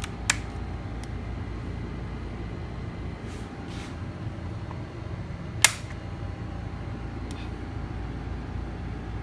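Steady background hum, with two sharp clicks: one about a third of a second in and a louder one a little past the middle.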